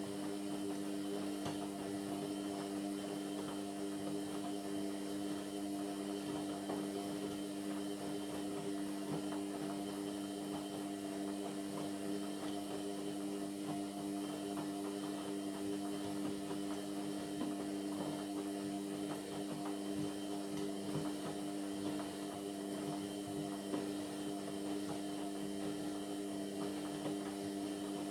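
Indesit MyTime washing machine giving a steady electric hum at one constant pitch, partway through a Cotton 60 wash.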